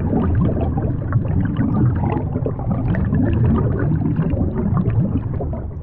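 Water bubbling and gurgling steadily, a dense stream of bubbles rising and popping in water.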